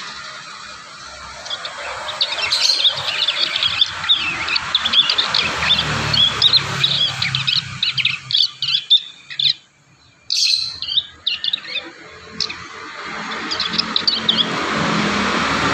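Young prinias (prenjak) practising their song: a run of rapid, high chirps and twitters that pauses briefly about halfway and ends shortly before the close, over a steady background hiss.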